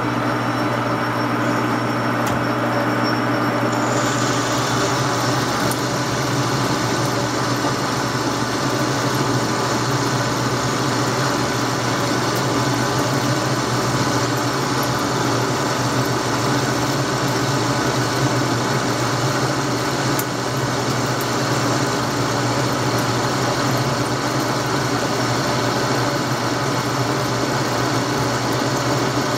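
Metal lathe running under power while a roughing tool takes a heavy .100 in cut on the turning workpiece, a steady machine hum with cutting noise over it. The sound turns brighter and hissier about four seconds in and then holds steady.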